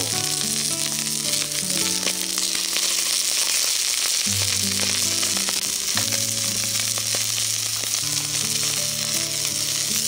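Shishamo (smelt) sizzling steadily as they grill on a hot iron griddle plate over a gas burner. Soft background music with sustained low notes plays under the sizzle.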